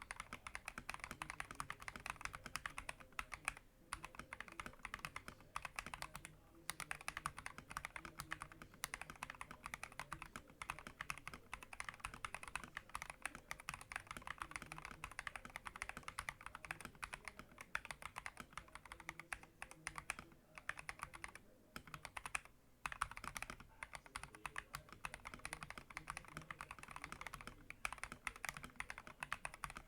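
Fast continuous typing on an FL eSport MK870 mechanical keyboard with Akko Rose Red linear switches and PBT keycaps: a dense patter of keystroke clacks, broken by a few brief pauses.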